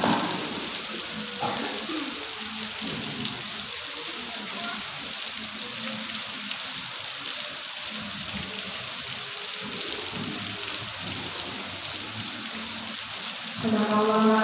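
Steady hissing background noise with faint low murmurs. Near the end a woman's voice starts singing into a microphone, amplified and louder than the hiss.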